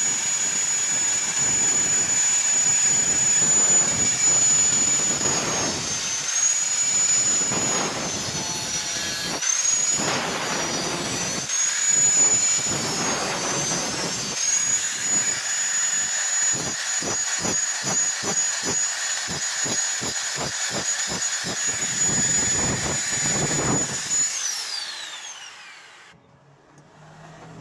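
Angle grinder running at a steady high whine as its disc grinds into steel angle iron, the pitch dipping briefly twice when pressed into the work. Near the end it is switched off and winds down, the whine falling in pitch as it fades.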